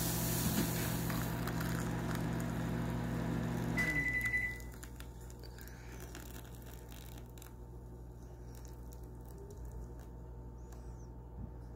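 A kitchen appliance hums steadily, then stops about four seconds in with a short electronic beep, leaving only a faint low hum.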